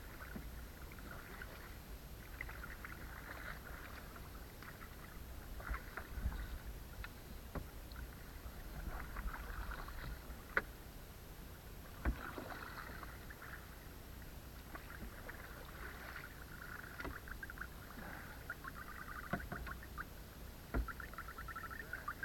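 Canoe being paddled: water swishing and splashing in uneven patches, with a few sharp knocks, over a low steady rumble.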